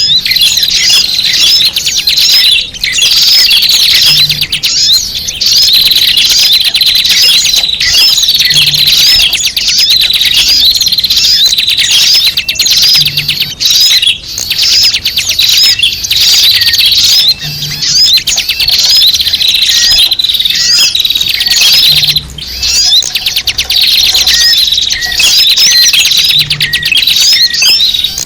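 A loud, dense chorus of many small birds chirping and twittering together, high-pitched and unbroken: a bird-lure (pikat) recording of noisy small birds.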